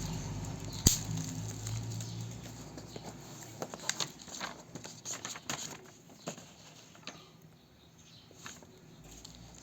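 Handling of a tablet's retail box and packaging: one sharp click about a second in, then scattered light taps and rustles that thin out toward the end.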